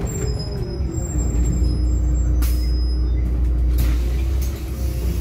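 Solaris Urbino 12 city bus heard from inside, its drivetrain whine falling in pitch as it slows during the first second, then running steadily with a strong low hum. A short hiss about two and a half seconds in.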